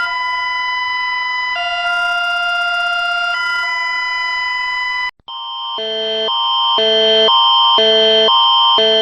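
Electronic emergency alert alarm tones. A steady multi-tone chord shifts between two pitches every couple of seconds and cuts off about five seconds in. A different alarm then fades in, switching rapidly back and forth between a low and a high chord over a steady high tone.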